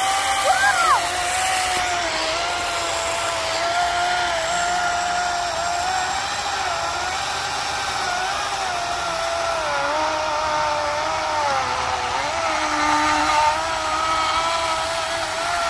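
Electric chainsaw running continuously as it cuts into a tree stump, a steady whine that sags in pitch partway through as the chain bogs down in the wood.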